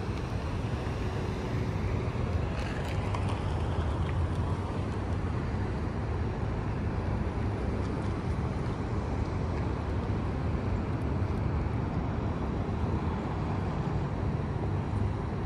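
Steady low rumble of road traffic, an even outdoor hum with no distinct events.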